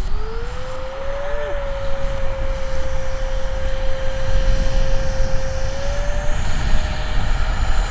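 Twin 50 mm electric ducted fans of a model Martin P6M SeaMaster running at part throttle: a steady whine that rises in pitch over the first second and a half, holds, then edges up again near the end. A low rumble of wind on the microphone runs underneath.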